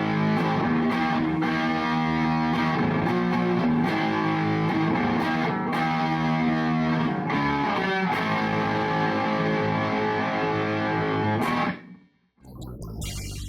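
Electric guitar music with heavy distortion, played as sustained chords, cutting off abruptly about 12 seconds in; after a brief gap, different, quieter music begins.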